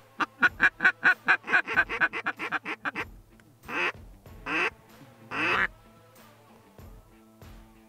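Mallard duck call blown as a hen's quacks: a fast run of about fifteen short quacks over three seconds, then three long, drawn-out quacks, each falling in pitch. This is calling to work incoming ducks toward the decoys.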